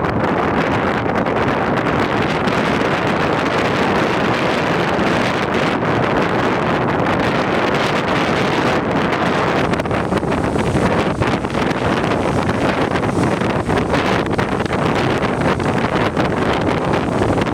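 Strong wind blasting across the microphone, a loud, steady, unbroken rush of noise.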